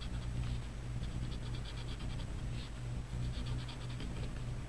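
Paper blending stump scratching over drawing paper in quick, short strokes, several a second, with brief pauses, blending colored pencil on the leaves.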